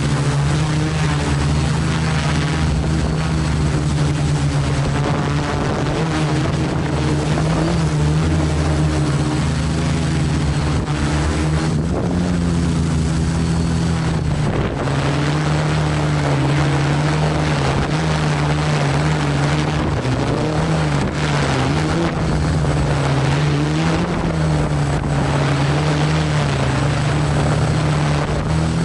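Multicopter's electric motors and propellers droning steadily, heard close from the on-board camera, their pitch wavering as the flight controller speeds and slows the motors to hold position in Loiter mode against gusts. Wind rushes over the microphone throughout.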